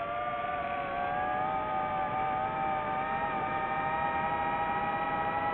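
DJI FPV drone's motors and propellers running with a steady whine, its pitch climbing slightly in the first second or two and then holding.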